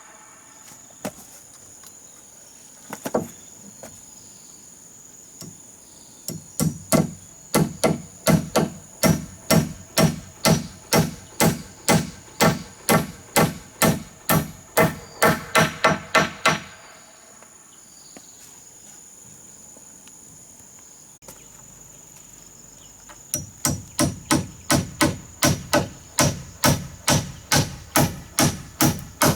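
Hammer blows on wood, as when nailing, struck at a steady pace of about two a second in two long runs with a pause of several seconds between them, after a couple of single knocks. A steady high-pitched insect trill goes on underneath.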